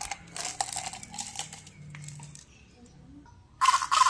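Hard candies clicking and rattling against each other and the plastic jar as they are poured into a hand. Near the end a much louder, steady rattling buzz starts abruptly from a handheld toy.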